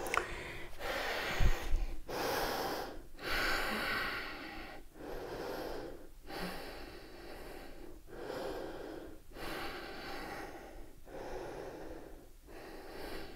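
A woman breathing hard from exertion, close to the microphone: long, steady breaths in and out, each about a second and a half, with short pauses between them.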